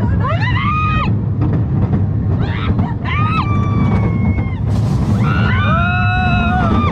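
Riders screaming on a steel roller coaster over the steady low rumble of the coaster train running on its track. A rising scream comes at the start, more follow around the middle, and several voices hold one long scream near the end as the train starts down a drop.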